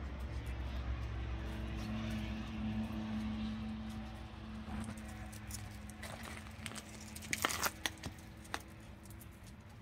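Low steady hum of a distant engine, fading out about halfway through, then a few sharp clicks and taps near the end.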